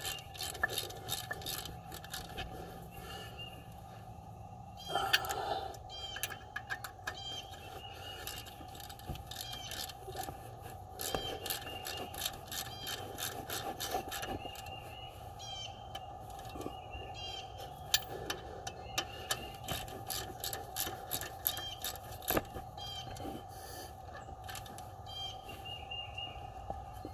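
Socket ratchet clicking in quick runs as bolts are tightened on the engine of a 1991 Firebird 3.1 V6, with short pauses between the runs.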